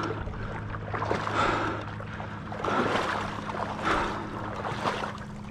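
Water sloshing as someone wades through shallow marsh water, a swishing splash about once a second, over a steady low hum.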